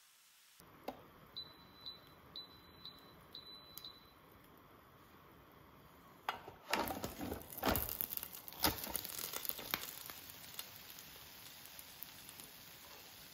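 Cuisinart flip waffle maker giving six short high beeps in three quick pairs, its signal that the waffle is done. A few seconds later come clicks and clatter as its handle and lid are worked and the lid is swung open.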